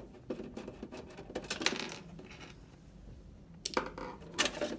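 Light metallic clicks and scraping as a PS4's hard drive in its metal caddy is handled and slid out of the console, with a few sharper clacks near the end.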